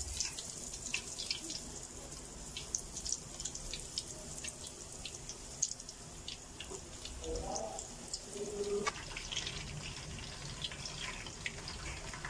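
Coated chicken drumsticks deep-frying in hot oil in a wok: a steady sizzle with many small crackles and pops, spreading as more pieces go into the oil.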